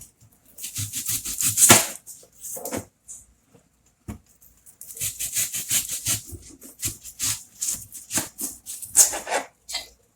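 Steak knife dicing onions and peppers into cubes on a cutting board: quick runs of crisp cuts, in two stretches with a short pause between them.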